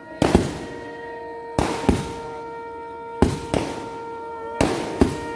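Procession drums beaten in a steady rhythm of loud, sharp paired strokes, about one pair every second and a half, over a steady held note.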